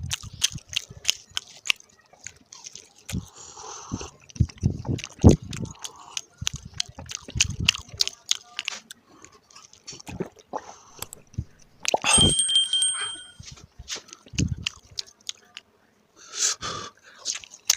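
Close-up chewing of crispy paratha: crisp crackles and crunches with wet mouth sounds and soft chewing thumps. About twelve seconds in comes a single ringing clink that dies away over about a second.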